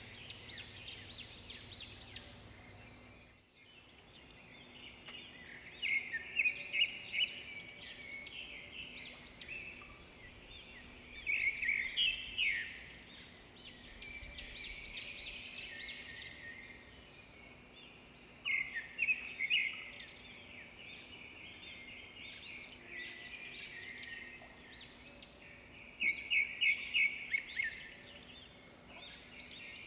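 A small songbird singing in short bursts of rapid, high chirps, each burst returning every several seconds, over a faint steady hum.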